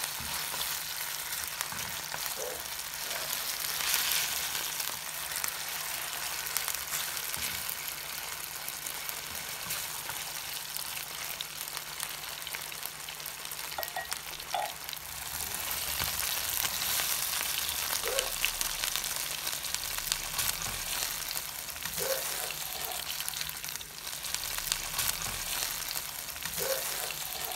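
Chicken pieces sizzling in hot olive oil in a nonstick frying pan on high heat: a steady frying hiss, with occasional light scrapes and taps as the pieces are stirred and turned.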